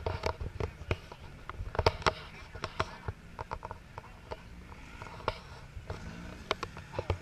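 Irregular sharp knocks and pops over a low rumble, with a side-by-side UTV's engine note rising and falling about six seconds in as the machine passes close by.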